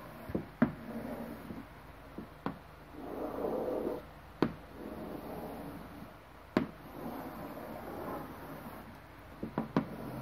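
Chalk drawing on a blackboard: sharp taps a second or two apart where the chalk strikes the board, with two longer scraping strokes between them as lines are drawn.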